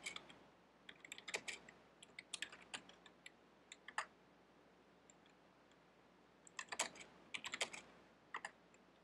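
Typing on a computer keyboard: two faint runs of key clicks, the first lasting about four seconds, the second starting after a pause of a couple of seconds.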